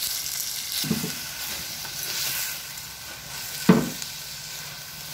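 Chicken pieces with onion and green chilli sizzling in hot oil in a clay pot, stirred with a spatula. The spatula knocks against the pot twice, about a second in and again, louder, a little past the middle.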